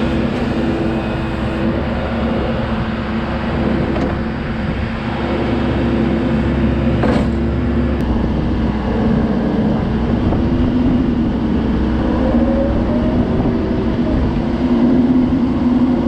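TYM 574 compact tractor's 55 hp diesel engine running steadily at working speed to drive the BY85 backhoe's hydraulics, its pitch wavering slightly in the second half. One short clank about seven seconds in.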